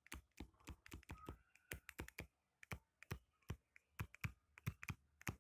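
Stylus tip tapping and clicking on a tablet's touchscreen during handwriting: a faint, irregular run of sharp little clicks, about five a second.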